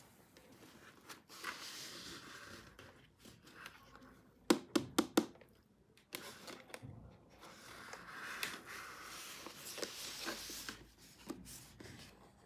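Hands handling a plastic toy carrier with a clear dome and a cardboard sleeve: soft rustling and scraping of plastic and card, with a quick run of about five sharp clicks or taps a little under five seconds in.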